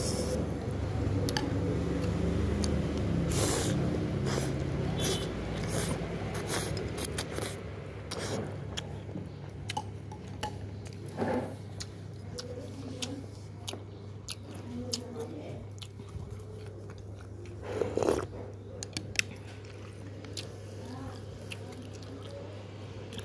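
A person chewing a mouthful of rice noodles and beef close to the microphone, with many short wet mouth clicks over a steady low hum. A louder burst comes about eighteen seconds in.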